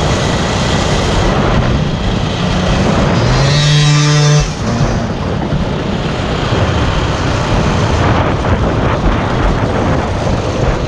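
Small off-road motorbike engine running hard under the rider. About four seconds in it revs up to a higher pitch, then the throttle is chopped and the note drops away abruptly.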